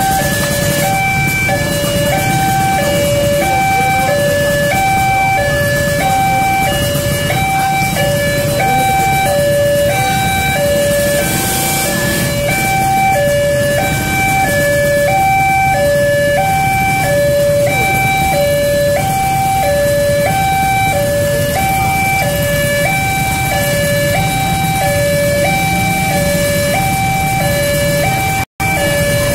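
Railway level-crossing alarm sounding its electronic two-tone warning, a higher and a lower tone alternating steadily about once a second, over a low rumble of traffic. The sound cuts out for an instant near the end.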